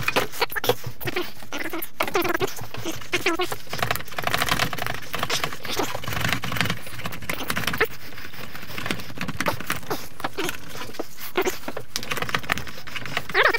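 Workshop disassembly noise: a continuous clatter of small clicks and knocks, with stretches of rapid clicking, as tools take bolts and plastic body panels off a dirt bike.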